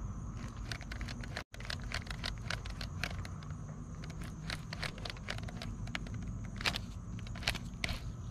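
Handling noise: irregular scrapes and sharp clicks over a low rumble as the angler handles the baitcasting rod and reel. The sound cuts out completely for an instant about a second and a half in.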